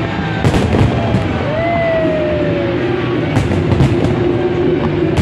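Aerial fireworks display: shells bursting in sharp bangs and crackles, one about half a second in and a quick cluster of several a little past the middle, over a dense steady wash of sound with background music. A short falling whistle-like tone comes about a second and a half in.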